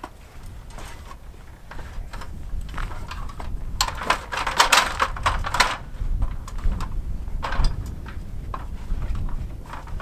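An aluminium stepladder clattering as it is shifted and climbed, with scattered knocks from feet on the rungs and a dense rattle of metal knocks about four to six seconds in. A low wind rumble on the microphone runs underneath.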